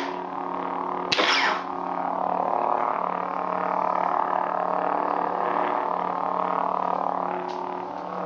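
Lightsaber hum from a Crystal Focus 8.1 soundboard through a small bass speaker: a steady low electric drone, with one short loud burst of effect sound about a second in.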